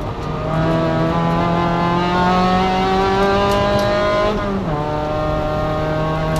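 Spec MX-5 race car's 2.0-litre four-cylinder engine running hard under load. Its note climbs slowly, then drops to a lower steady pitch about four and a half seconds in.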